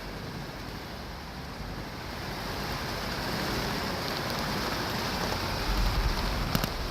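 Thunderstorm: steady heavy rain with a low rumble of thunder swelling near the end, topped by a short sharp crack.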